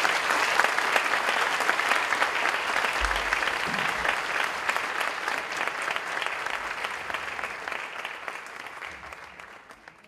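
Audience applauding: dense, steady clapping that tapers off over the last couple of seconds.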